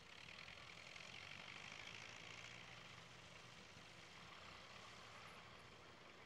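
Vintage tractor engine running faintly and steadily as the tractor drives off across the sand, with a steady hiss over it in the first half.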